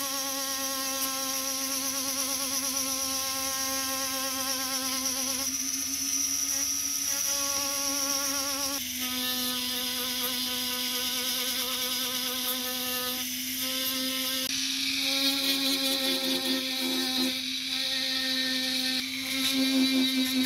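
Handheld rotary tool running with an abrasive bit, a steady high motor whine, as the bit grinds and sands the grooves of a metal ring. The pitch steps slightly a couple of times as the load changes, and a rougher grinding hiss grows over the last few seconds as the bit bears harder on the metal.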